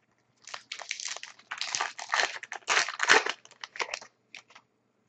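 Plastic wrapper of an Upper Deck SPx hockey card pack being torn open and crinkled, a run of irregular rustling bursts that stops near the end.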